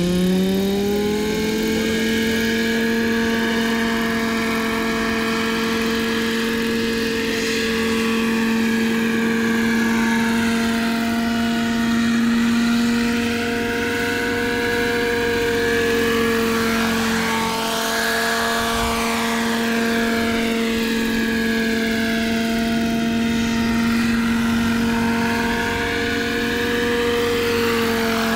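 Vario EC135 radio-controlled scale model helicopter running, its engine and rotors rising in pitch over the first second or two as it spools up and lifts off, then holding a steady pitch as it hovers and flies low. The sound swirls and phases as the helicopter moves about.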